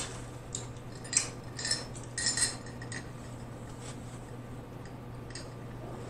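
A few light glassy clinks and taps as a glass mug with a straw is handled and picked up to drink, over a steady low hum.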